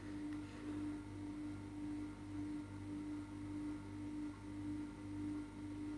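A steady low hum with a tone that swells and fades in an even beat, about twice a second.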